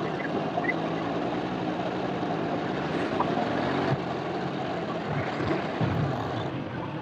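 Steady noise of a vehicle moving through city traffic: engine running with tyre and wind noise, even throughout.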